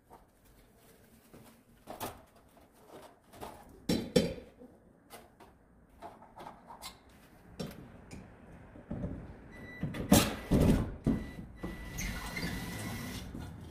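Knocks, clicks and rattles of a surface-mounted bathroom ceiling light being taken apart by hand, loudest in a burst of clattering about ten seconds in. A steady high whine sounds through the last few seconds.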